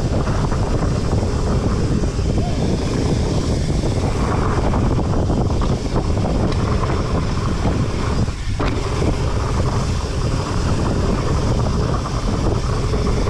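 Wind buffeting the microphone of a camera on a mountain bike ride, with the rumble of fat-bike tyres rolling over a dirt trail. The noise stays steady, with a short dip about two-thirds of the way through.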